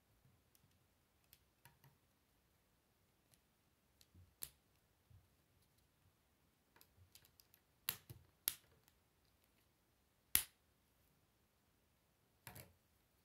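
K'Nex plastic rods and connectors being snapped together by hand: about five sharp plastic clicks, the loudest around ten seconds in, with fainter ticks of handling between.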